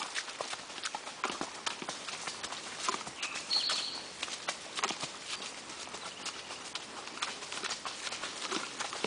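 A horse's hooves clopping at a walk along a muddy, puddled trail, in an uneven run of short knocks.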